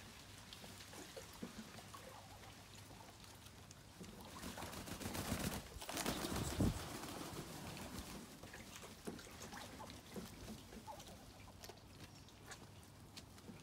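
Ducks in shallow rainwater, with small splashes and clicks, soft bird calls, and a louder burst of splashing in the middle.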